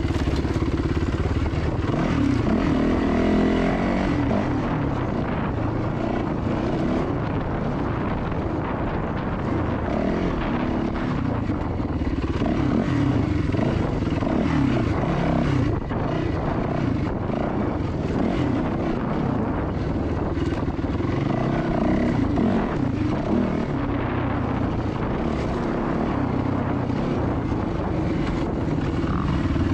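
Yamaha WR450F single-cylinder four-stroke dirt bike engine being ridden hard on a trail. Its pitch rises and falls over and over as the throttle is opened and shut.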